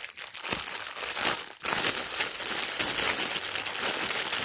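Plastic packaging crinkling and crackling as it is handled, pausing briefly about a second and a half in.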